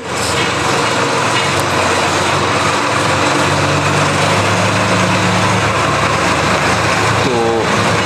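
A loud, steady noise with a low hum under it runs without a break, machine-like, like a fan or motor. A brief voice-like sound comes near the end.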